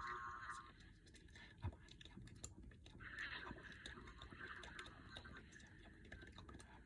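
Near silence: faint scattered clicks, with one soft knock about one and a half seconds in.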